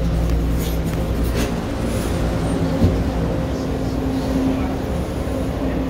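Bombardier T1 subway train running on the track, heard from inside the car: a steady low rumble with a constant electric hum. There are a few sharp clicks in the first second and a half.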